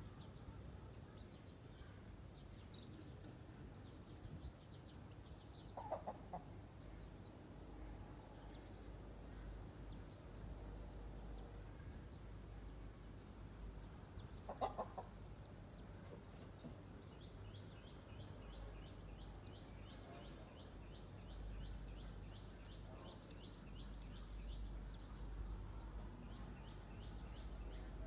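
Hen clucking, two short low calls about eight seconds apart, over a steady thin high whine. In the second half, a long run of quick, high, falling peeps from her chicks.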